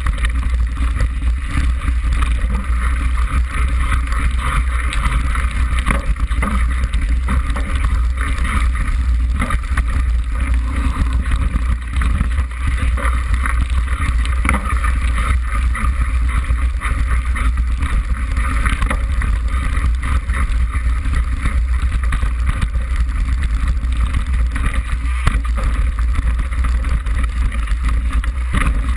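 Wind buffeting the microphone of a camera mounted on a mountain bike descending a rough track, a steady low rumble, with the bike and mount rattling and clattering over the bumpy ground.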